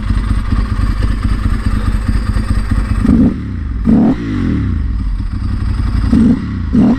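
Ducati 996 V-twin engine running under way on a test ride after a repair. From about three seconds in, the throttle is blipped several times and the revs fall away after each blip.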